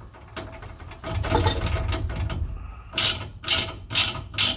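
Hand socket ratchet being worked back and forth, its pawl clicking in strokes about twice a second from about three seconds in, tightening an air fitting. Before that there is handling noise of metal parts.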